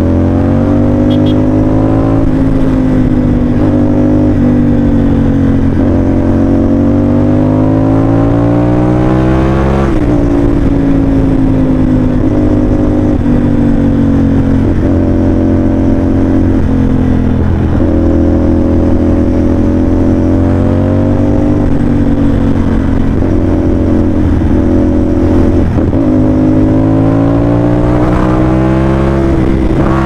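CFMOTO 450NK's 270° parallel-twin engine through an SC Project dual aftermarket exhaust, ridden through the gears. Its pitch climbs steadily under acceleration, drops suddenly at each upshift (most clearly about ten seconds in), and holds level while cruising, then climbs again near the end.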